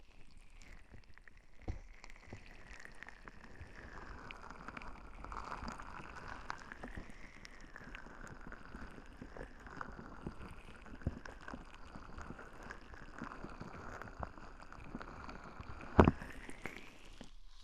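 Relaxation-ball ear massage on a binaural microphone: the ball is rubbed and rolled over the mic's ear, making a close, crackly rustle with a hollow tone that drifts up and down. There is a sharp knock about 16 seconds in.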